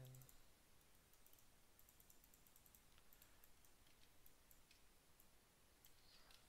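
Faint computer mouse clicks at irregular intervals over near-silent room tone.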